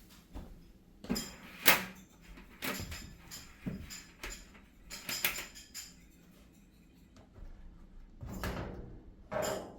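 Scattered sharp clicks and knocks of metal hardware and tools being handled while a new tub-support wheel shaft is bolted into a dryer, the loudest a little under two seconds in and a cluster again near the end.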